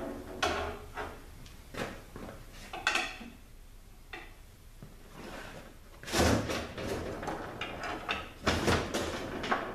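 Metal clunks and scraping from a Honda BAYA five-speed automatic transmission case being worked loose where it is stuck on its dowels. Several separate knocks, with the two loudest, longer clatters about six seconds in and again about eight and a half seconds in.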